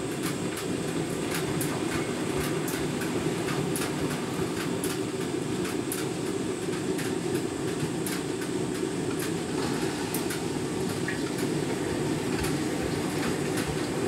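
Candy Grand'O Vita front-loading washing machine's drum turning wet laundry in a deep rinse: a steady rumble with irregular clicks and splashes as the load tumbles, while the rinse water drains.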